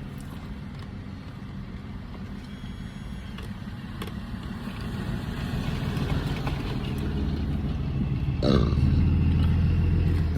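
A steady low hum, then a long, deep burp starting about eight and a half seconds in.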